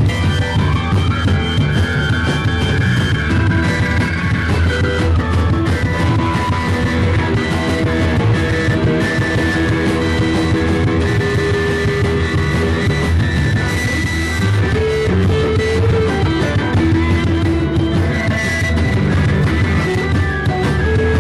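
Live rock band playing: electric guitars, bass and drum kit, with a keyboard, in a loud, steady band sound. A high note swoops up and back down in the first few seconds.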